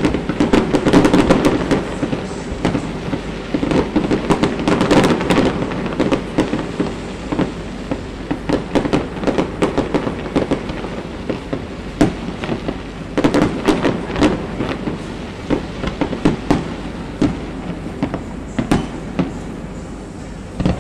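Fireworks display: a dense string of bangs and crackles from aerial shells bursting over a rumbling background. The bursts are thickest in the first few seconds and again about two-thirds of the way in, and they thin out near the end.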